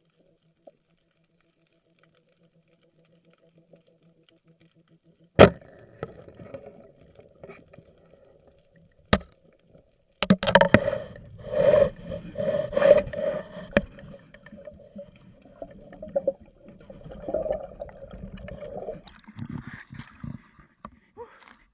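Underwater spearfishing sounds: a faint steady hum, then sharp, loud snaps of a speargun shot, followed by several seconds of clattering, scraping noise around the speared fish on the spear shaft.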